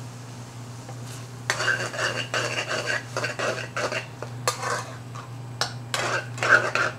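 Metal ladle scraping and clattering against a metal pan as okra is stirred through a thick tomato masala, with irregular strokes several times a second starting about a second and a half in. A steady low hum runs underneath.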